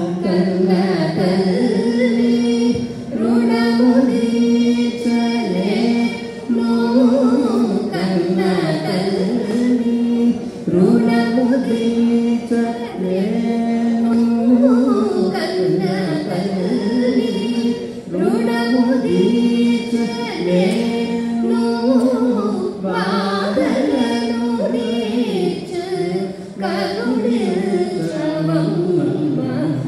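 A man and a woman singing a Telugu devotional kirtana together in Carnatic style, with long held notes that slide between pitches.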